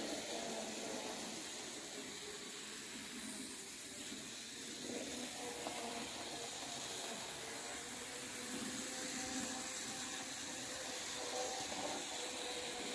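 N-scale model electric locomotive running around its track pulling its coaches, its small motor giving a faint steady whine over a constant hiss.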